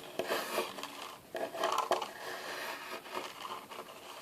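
Drawing on paper: irregular scratching and rubbing strokes of a drawing tool across the sheet.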